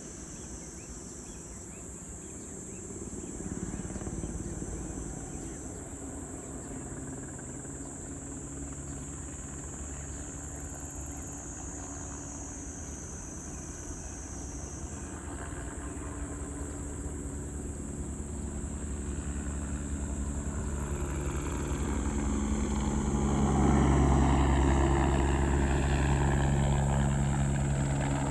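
Crop-spraying helicopter flying in, growing louder to a peak about two-thirds through, its whine falling in pitch as it passes. Insects chirp steadily throughout.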